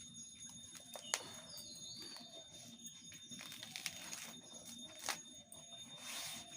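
Banana leaf being folded around a fish filling: faint rustling and crackling of the leaf, with a few sharp clicks and a short rustle near the end. Faint bird chirps.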